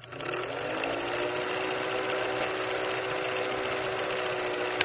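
Film projector sound effect: a fast, even mechanical clatter with a steady motor hum that climbs in pitch as it spins up at the start, ending with a sharp click near the end.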